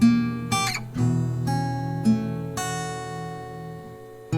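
Acoustic guitar music: four strummed chords, each left to ring and fade, the last dying away near the end.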